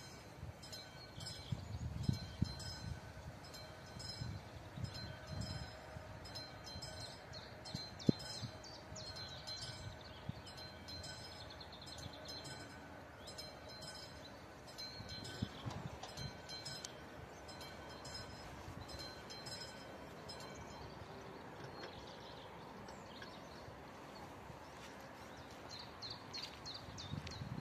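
Level-crossing warning bell (classic electric bell of an AŽD 71 crossing) ringing with rapid, repeated metallic strikes, signalling that a train is approaching. A sharp knock stands out about eight seconds in, over low rumbles.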